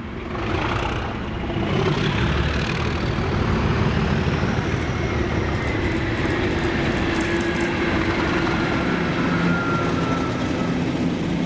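Class 37 diesel-electric locomotive, its English Electric 12CSVT V12 engine running as it passes, a steady loud rumble with a faint whistle that slowly falls in pitch.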